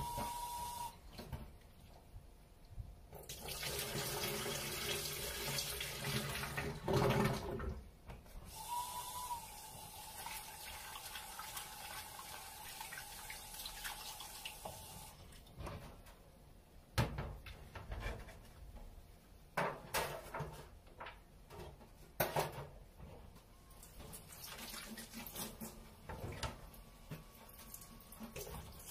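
Kitchen tap running into a stainless steel sink while a small pot and dishes are rinsed by hand, the flow heaviest for several seconds a few seconds in. In the second half, dishes and utensils knock and clink against the sink and the wire drainer.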